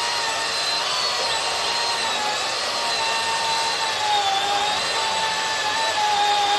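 Cordless chainsaw running at speed, a high electric-motor whine that holds steady and sags a little in pitch now and then.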